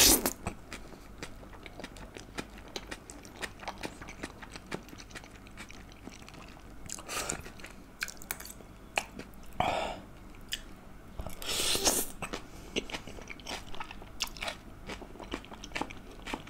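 Close-miked mouth sounds of a person eating stir-fried udon noodles: wet chewing with many small smacks, and a few louder slurps about seven, ten and twelve seconds in.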